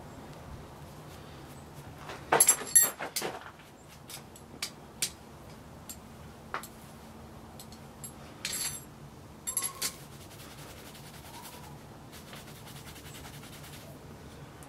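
Scattered metallic clinks and rattles of blacksmith's tongs and a steel bottle opener knocking on the anvil as the piece is wiped with an oiled rag, a loud cluster of them about two to three seconds in, then single clinks every second or two.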